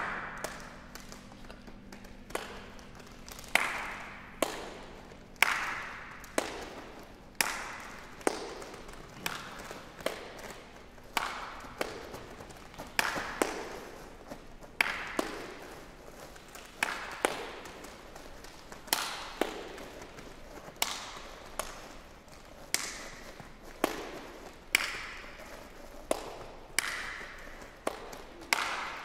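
Sharp percussive snaps from small hand-held objects played by ensemble performers: single hits at an irregular pace of about one a second, each followed by a short ring of hall reverberation.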